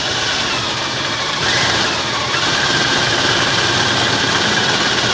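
Cordless drill running a step drill bit through A-pillar trim clamped in a vise: a steady motor whine with the bit cutting, its pitch lifting briefly about one and a half seconds in.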